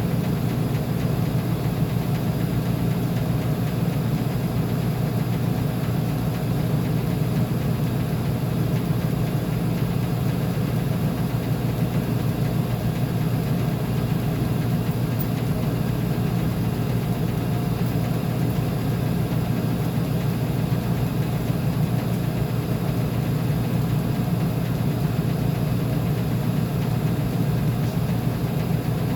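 Uni-Mac UniMat 35 commercial front-load washing machine running with a steady low hum and no change in pace.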